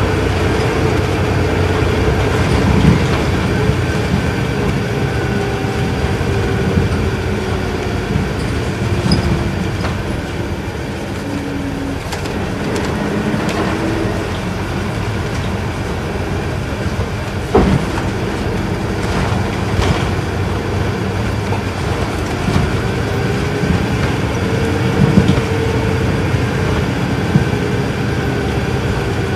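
Isuzu Erga Mio city bus's inline-six diesel engine running under way, heard from inside the cabin. Its tone falls about ten seconds in and then rises again as the bus picks up speed. There is one sharp knock a little past halfway.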